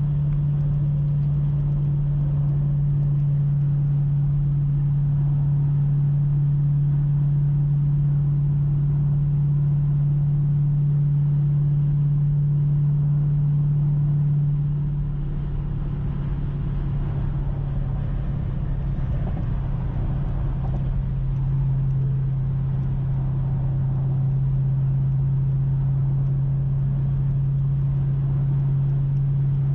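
Inside the cabin at freeway cruise, the 392 HEMI V8 of a 2019 Dodge Durango SRT with an MRT cat-back exhaust makes a steady low exhaust drone over road noise. This is the drone the exhaust gives at about 2000 RPM. It fades for several seconds midway, then comes back.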